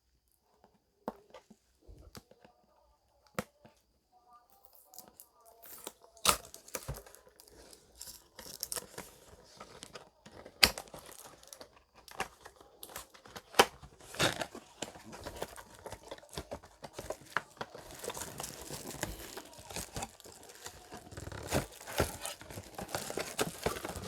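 Packaging being handled and unwrapped: plastic wrap and packing crinkling and tearing, with scattered clicks and knocks. It starts as a few isolated clicks and grows into a dense, busy crackle from about five seconds in, busiest near the end.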